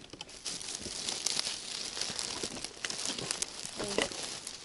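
Dry pine-forest litter of needles, twigs and leaves rustling and crackling, with many small irregular crackles as it is trodden on or handled.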